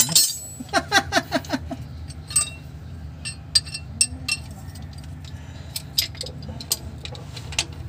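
Metal hand tools clinking and clicking now and then, sharp separate knocks, over a steady low hum.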